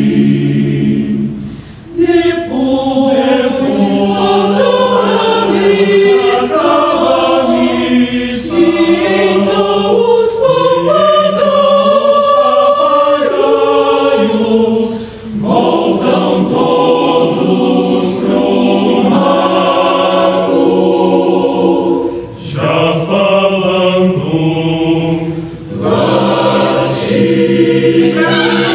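Mixed choir of women's and men's voices singing in harmony, holding chords that move from note to note, with a few brief breaks between phrases.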